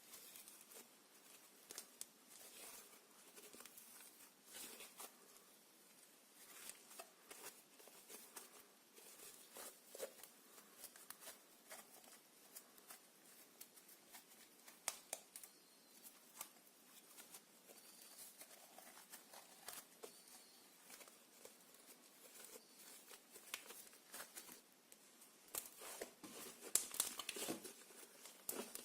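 Sticky slime being worked, with irregular wet crackles and small clicks, growing busier and louder near the end.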